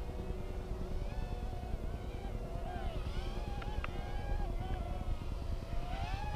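Micro quadcopter's tiny motors and propellers whining in flight, the pitch wavering up and down as the throttle changes, over a low rumble.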